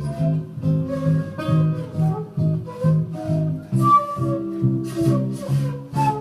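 Instrumental break of a swing jazz standard played by a small acoustic combo: guitar and bass keep a steady beat under a melody line, with no singing.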